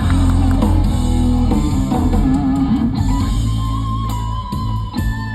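Guitar-led band music, with a held melody note coming in about halfway through.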